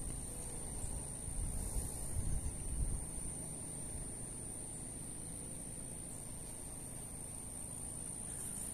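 A steady, high-pitched insect drone runs on without change, over low rumbling on the microphone that eases off about three seconds in.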